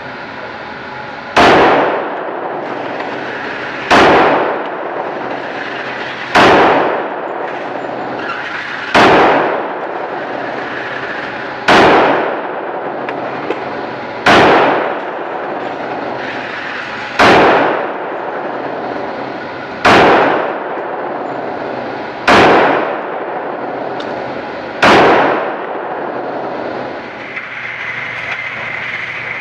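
Ten single pistol shots from a longslide Glock 41 in .45 ACP, evenly paced about two and a half seconds apart, each with a short echo off the walls of an indoor range. Near the end a steady whine as the target carrier motor runs the paper target back in.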